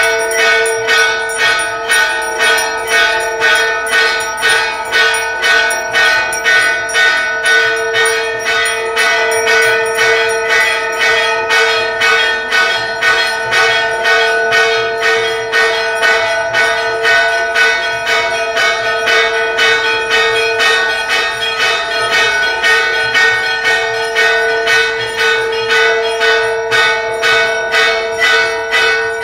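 Brass temple bells rung for aarti, struck in a steady, even rhythm of about two strokes a second, each stroke ringing on into the next.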